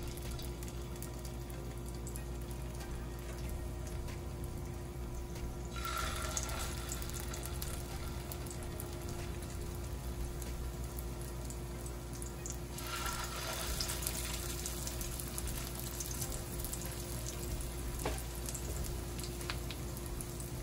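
Shami kababs sizzling in hot oil in a frying pan: a steady sizzle that flares up suddenly about six and thirteen seconds in as each new patty is laid into the oil, then settles again.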